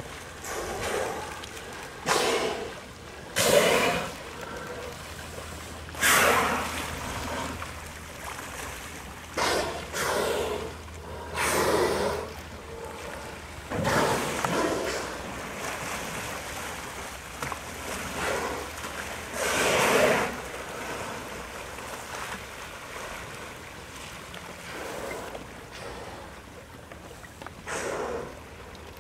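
Killer whales (orcas) blowing as they surface: a string of loud, breathy exhalations at irregular intervals of a second to several seconds, some louder than others.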